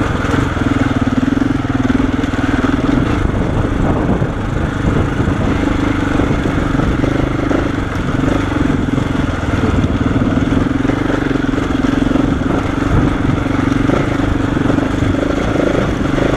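KTM 690 Enduro's single-cylinder engine running steadily at low revs in first gear, creeping along.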